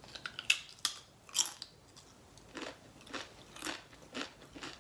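Close-miked eating: two sharp crunching bites in the first second and a half, then steady chewing with a soft stroke about every half second.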